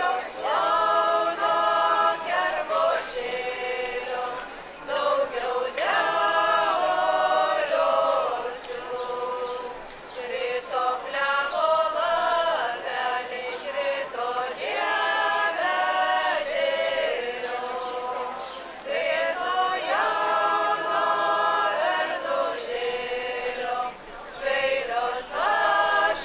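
A women's folk ensemble singing a Lithuanian folk song a cappella, several voices together in short phrases of held notes with brief pauses between them.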